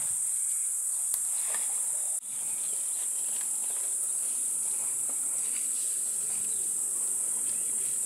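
Steady, high-pitched drone of insects in the dry bush, broken off for an instant about two seconds in.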